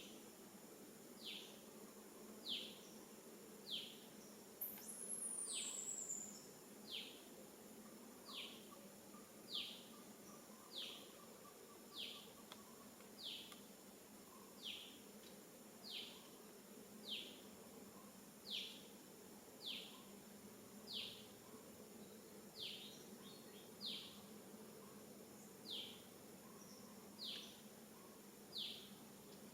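A bird calling over and over, one short falling note about every second and a quarter, over a steady high insect drone. About five seconds in, a longer whistle slides down in pitch.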